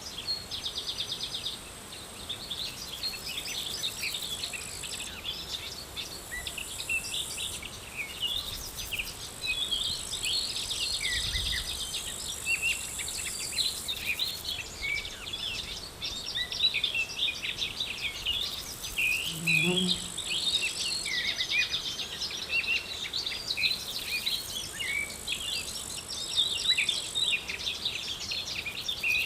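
Outdoor summer field ambience: many small birds chirping and twittering, with high, steady insect trills from crickets or grasshoppers starting and stopping every few seconds. A brief low buzz about twenty seconds in.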